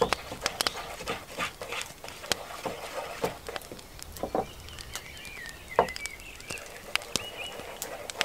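Twig whisk beating batter in a bowl: quick, irregular clicks and taps as the twigs strike the bowl. A high, wavering bird call runs through the middle.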